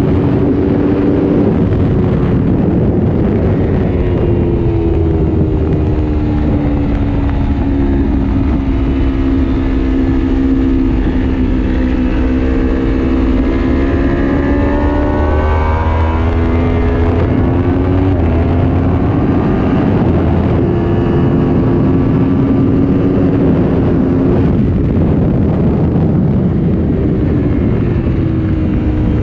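Aprilia Tuono V4 Factory's V4 engine heard on board at track speed, its pitch falling and climbing several times as the rider brakes and accelerates through corners, over a steady rush of wind on the microphone.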